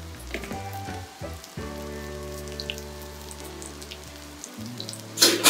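Semolina-coated chicken kebabs shallow-frying in oil on a flat tawa: a steady fine crackling sizzle, under background music with sustained chords. Near the end there is a loud, brief burst of hissing.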